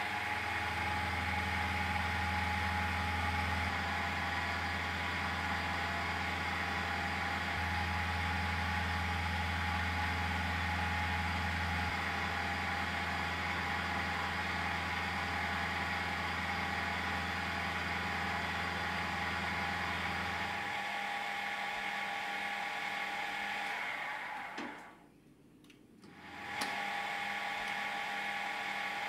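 Mini milling machine running, its end mill cutting an aluminium block: a steady motor and spindle whine with the rasp of the cut. A deep hum underneath stops about two-thirds of the way through, and the sound drops away briefly near the end before coming back.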